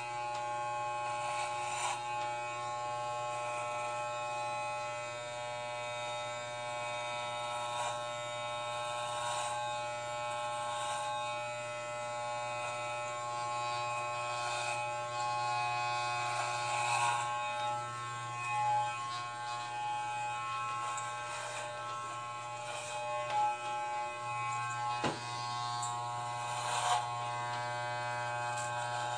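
Corded electric hair clippers buzzing steadily as they shave hair close to the scalp, with brief rasping flares now and then. A single sharp click comes a few seconds before the end.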